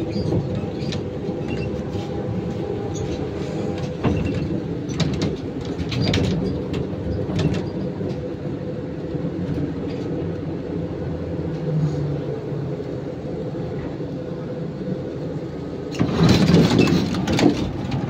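Cabin noise of a ZiU-682 trolleybus: a steady hum with rattles and occasional knocks from the body and doors. About sixteen seconds in, the folding passenger doors open with a loud clatter.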